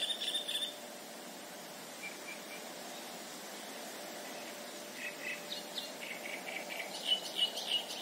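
Small birds chirping in short runs of high notes, a few groups spread out and more frequent near the end, over a steady background hiss.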